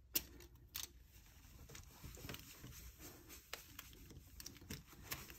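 Faint handling sounds: small clicks and taps as picture cards are lifted off a laminated page, the sharpest shortly after the start, with a damp cloth rubbing softly across the wipe-clean page to erase marker.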